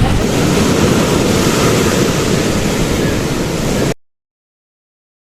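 Sea surf washing over the rocks with wind buffeting the microphone, a loud, steady rush. It cuts off suddenly about four seconds in, leaving dead silence.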